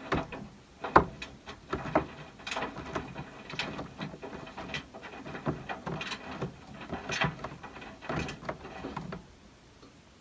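Maytag front-load washer tumbling wet laundry: irregular clicks and thuds of the clothes and drum, which stop about nine seconds in.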